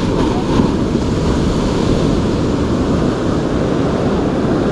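Sea waves breaking and washing up a sandy beach in a steady rush, with wind buffeting the microphone.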